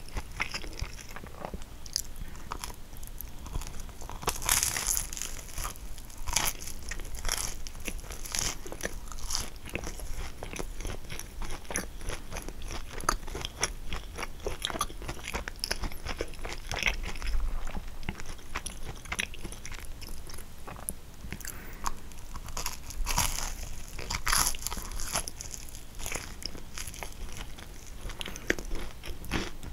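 Close-miked eating of a kouign-amann: the crisp caramelized, flaky pastry crackles and crunches with each bite, and moister chewing comes between bites. A few louder crunches stand out, about four seconds in, around eight seconds and again near the end.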